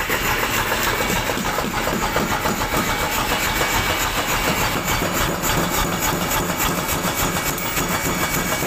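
A machine running steadily, a dense continuous noise with no pauses.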